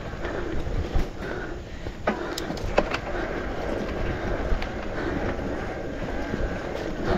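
E-mountain bike ridden fast over a rough dirt trail: tyres rolling and the bike rattling, with sharp knocks from impacts over roots and rocks. A thin steady whine runs through the middle.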